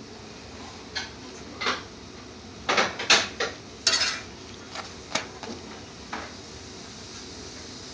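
Metal spatula scraping and tapping against a black iron tawa as a paratha fries. There are about a dozen short strokes, busiest a few seconds in, over a steady faint hiss.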